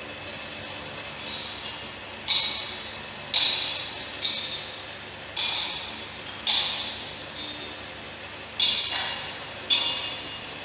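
A thurible's metal chains and censer clinking as it is swung to incense the coffin: eight sharp metallic clinks, about one a second, each ringing on in the church's echo.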